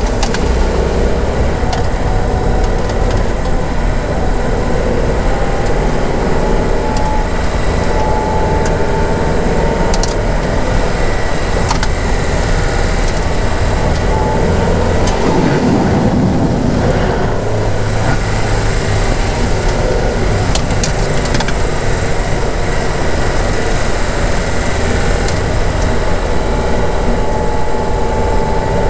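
Car driving slowly over a rough, puddled dirt lane, heard from inside the cabin: steady engine and tyre noise with scattered knocks and rattles and a faint whine that slowly rises in pitch. About halfway through, a brief burst of heavier low noise as the car goes through standing water.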